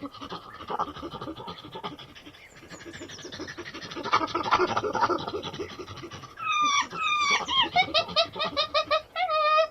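Monkey calling: a fast, rough chattering for the first six seconds or so, then a run of loud, shrill screeches that drop in pitch, repeated in quick succession.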